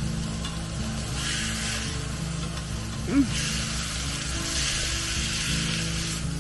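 Steak sizzling on a hot griddle pan. The sizzle swells about a second in and again for the last three seconds, when the steak is stood on its fatty edge with tongs to sear it.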